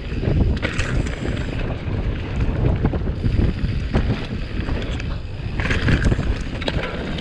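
Mountain bike rolling fast down a dry dirt trail: a steady rumble of wind buffeting the helmet camera's microphone, mixed with the tyres on dirt and constant knocking and rattling of the bike over rough ground.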